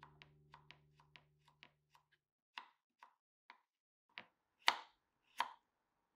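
A chef's knife cuts on a wooden cutting board. First come quick, light strokes slicing burdock root into thin strips, then a few slower, heavier chops through carrot, the last two the loudest. Faint background music fades out in the first two seconds.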